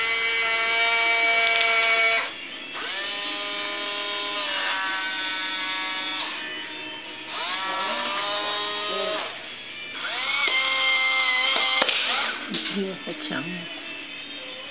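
Electric drive motors and gearboxes of a Marui M1A2 RC tank whining in about five runs of one to two seconds each. Each run starts with a quick rise in pitch as the motors spin up, then holds a steady pitch. Some rougher, irregular motor noise follows near the end.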